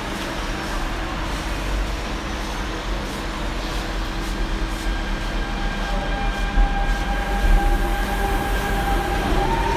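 Alstom-built Nanjing Metro Line 2 electric train pulling out of the station. Its steady rumble grows louder, and from about halfway the electric traction drive's whine sets in as several steady tones, starting to rise in pitch near the end as the train picks up speed.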